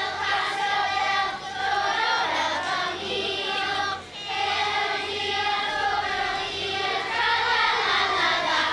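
A large choir of children singing together in long held phrases, with brief pauses about one and a half and four seconds in.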